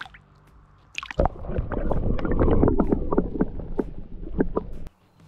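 River water splashing and gurgling around a camera dipped underwater as a perch is released, with a knock about a second in followed by dense small splashes and clicks. It cuts off abruptly near the end.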